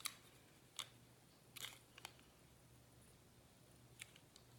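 Near silence: quiet room tone with a faint steady low hum and a few faint, brief clicks.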